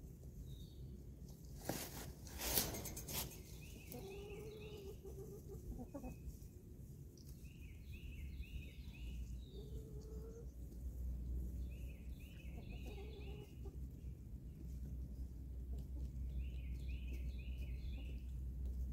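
Backyard hens clucking and calling, with a brief rattling clatter about two seconds in. A small bird repeats a quick run of four or five high notes every few seconds.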